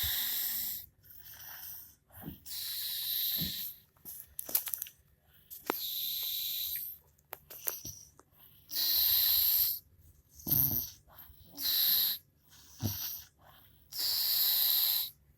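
A sleeping woman snoring: wheezy, hissing breaths about every three seconds, with a few short low snorts in between.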